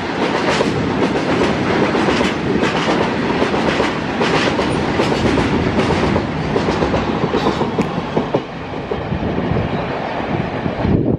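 Freight train of tank wagons rolling past at close range, its wheels clattering over the rail joints in a dense run of knocks. The noise eases a little near the end as the last wagons go by.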